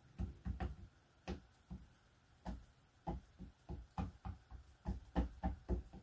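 Ink pad dabbed again and again onto a rubber stamp to ink it: a run of short, irregular taps, two or three a second.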